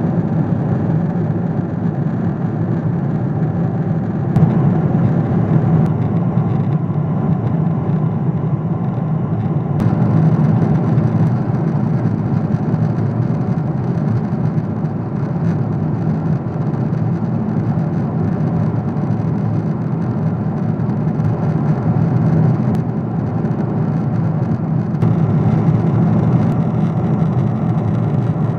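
Steady cabin noise of a Boeing 777-200ER in flight: a low, even drone of rushing airflow and its GE90 engines, heard from a window seat.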